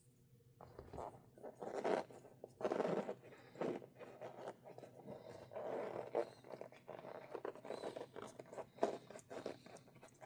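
Irregular scraping, rasping and crinkling from hands working a rubber RC crawler tire onto a plastic 2.2-inch wheel, in uneven strokes.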